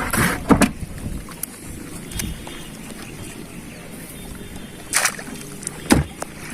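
A small boat moving on water with a steady wash of water, and a few sharp knocks or splashes: two right at the start and two near the end.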